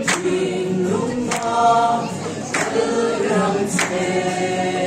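Small mixed group of male and female voices singing a Christmas carol in harmony, with an acoustic guitar strummed about once every second and a quarter.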